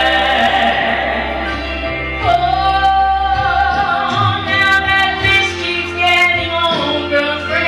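A gospel song sung with instrumental accompaniment; the singer holds long, wavering notes with vibrato over a steady low backing.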